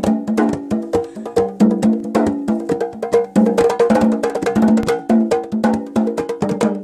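A hand drum played with both hands in a quick, steady rhythm of ringing, pitched strikes.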